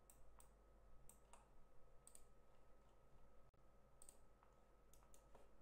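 Faint computer mouse clicks, about half a dozen at irregular intervals, over a faint steady electrical hum.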